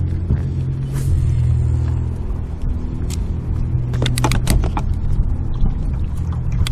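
A boat engine running steadily with a low hum. A few sharp clicks come about four seconds in.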